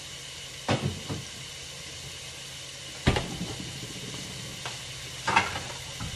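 Ground beef frying in an oiled pan, a steady sizzle, with a few sharp knocks and clunks over it, the loudest about three seconds in.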